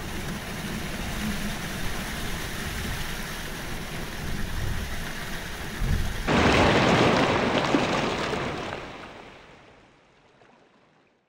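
Rushing water and wind of a racing yacht sailing fast through the waves. About six seconds in, a louder, hissier surge of spray comes in, then everything fades out to silence.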